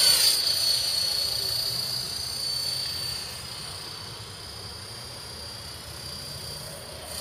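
Electric KDS 450 RC helicopter flying: a steady high-pitched motor and rotor whine, loudest in the first second as it passes low and close, then fainter as it moves off.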